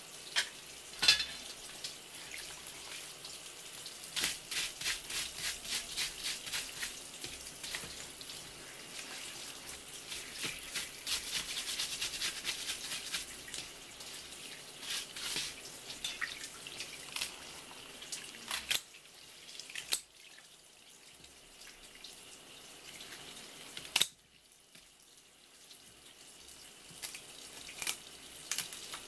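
A thin stream of tap water splashing onto a wooden cutting board and a live swimming crab as it is washed, with runs of quick rubbing and scraping clicks from hands working the shell, and a few single sharp knocks of shell against the board.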